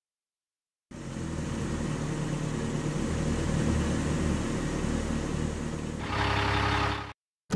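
Car engine sound effect running steadily as the toy cars drive in. About six seconds in it turns to a brighter hiss, then cuts off suddenly.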